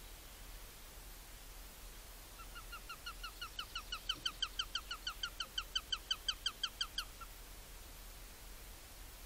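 Eurasian sparrowhawk calling: a rapid run of about two dozen short, sharp, evenly spaced notes, about five a second. The run starts about two seconds in, grows louder and stops abruptly after four to five seconds.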